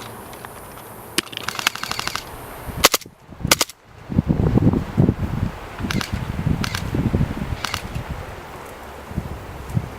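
Airsoft guns firing: sharp single snaps and one quick full-auto burst of about a dozen shots near the start, with more scattered single shots later. Through the middle there is a low rumbling noise on the microphone.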